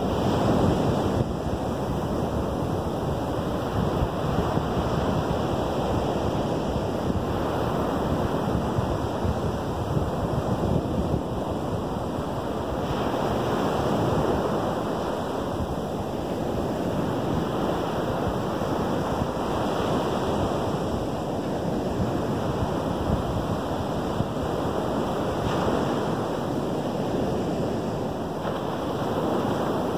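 Lake Michigan surf breaking and washing onto a sandy beach: a steady rush that swells gently every several seconds as waves come in, with wind on the microphone.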